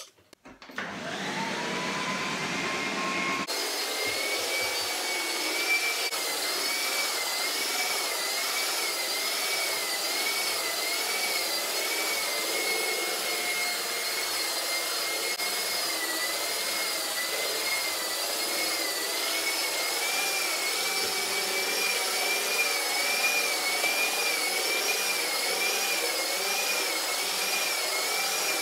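Electric three-disc floor polisher with felt buffing pads, buffing a waxed marble floor. The motor starts about half a second in with a rising whine, then runs steadily. Its pitch wavers up and down about once a second as the machine is swept back and forth.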